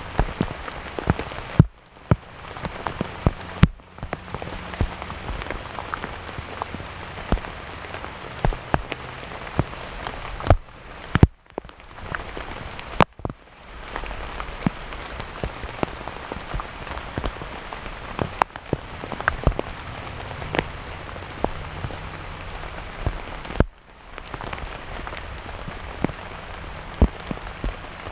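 Heavy rain falling steadily, with many sharp individual drops ticking on something close by. A few very brief gaps cut into the hiss.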